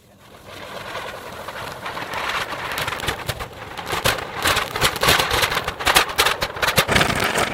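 Table fan with pomegranates fixed to its blades, starting up and spinning: a rushing noise that builds over the first couple of seconds, thick with rapid crackling clatter that grows louder in the second half.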